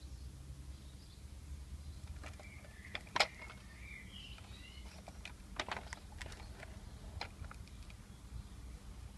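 Plastic clicks and knocks from a Bruder Valtra T191 toy tractor being handled and its hinged bonnet lifted, the sharpest click about three seconds in. A bird chirps faintly in the background for a second or two around the same time.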